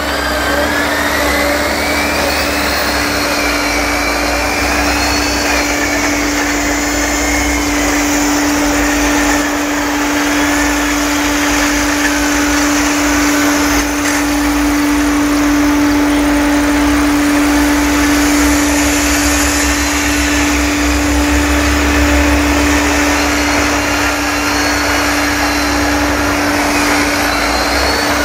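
Farm tractor engines running at a maize silage clamp: a steady drone with a constant hum underneath and engine pitch wandering up and down.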